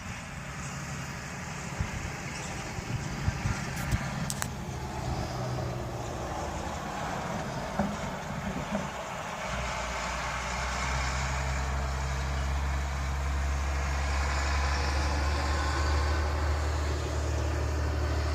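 Truck engine running, with a few knocks in the first half. About halfway through it settles into a louder, steady low drone.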